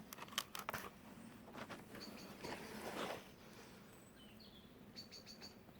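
Faint bird chirps: short high notes about two seconds in and again near the end, among a few small clicks and knocks.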